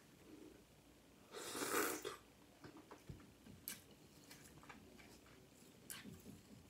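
Faint mouth sounds of a person tasting: one louder slurp about a second and a half in, then small lip smacks and clicks.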